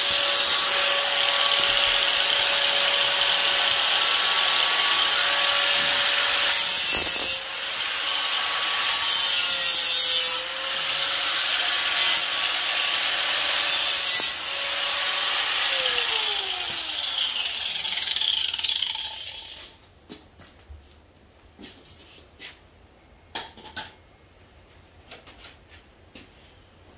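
A power grinder grinding into steel on the truck's frame, a loud harsh rasp over a steady motor whine that dips briefly a few times. About two-thirds of the way through it winds down with a falling whine and stops. A few light knocks and clicks follow.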